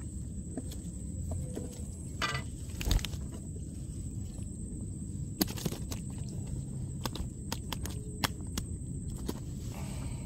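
Wind buffeting the microphone as a steady low rumble, with scattered sharp clicks and light knocks of fishing gear being handled in a small boat.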